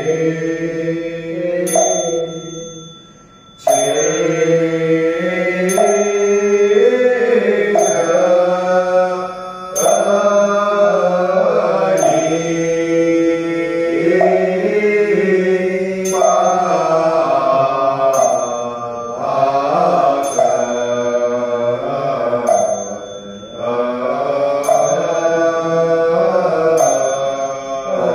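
Buddhist liturgical chanting: voices sing a sutra or recitation together, kept in time by steady strikes on a wooden fish (muyu), with a small bell ringing now and then. The chant breaks off briefly about three seconds in, then resumes.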